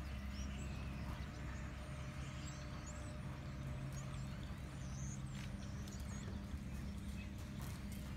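Hoofbeats of a horse cantering on deep arena sand, faint and dull, over a steady low hum.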